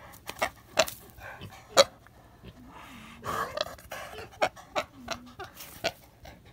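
A pig sniffing and snuffling right at the microphone in quick, sharp sniffs, with a couple of short low grunts.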